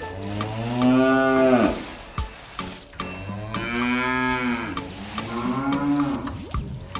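Three long, cow-like moos, each rising and then falling in pitch, over background music with a steady beat.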